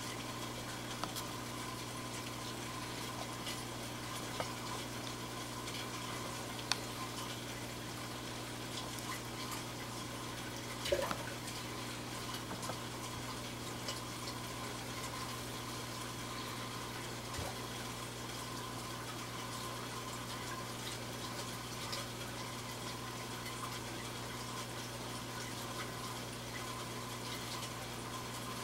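Steady rush and bubbling of aquarium water circulation, with a constant low electrical hum from the pump or filter motor. A few faint clicks break through, the loudest about eleven seconds in.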